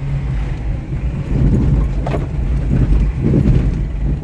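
Worn car engine running at low revs with a steady low drone as the car rolls across rough field ground, with a sharp clunk about two seconds in and a duller thud a little over a second later.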